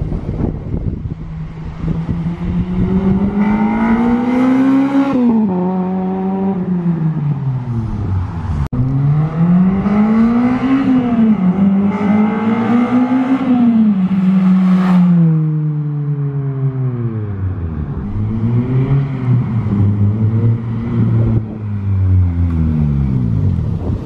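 Honda Civic EP3 Type R's 2.0-litre four-cylinder through a Skunk2 Megapower R exhaust, driven hard past on the road. The engine note climbs in pitch, drops sharply at each gear change and climbs again, several times over, then falls away as the car passes and slows near the end.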